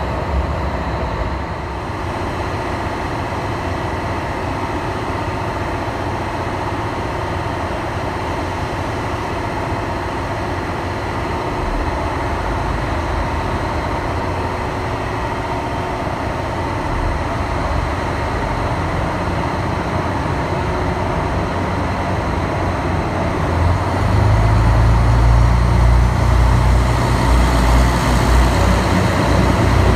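JR Hokkaido KiHa 183 series diesel multiple unit at the platform. A steady hum runs until about 24 seconds in, when its diesel engines throttle up loud and low as the train pulls away.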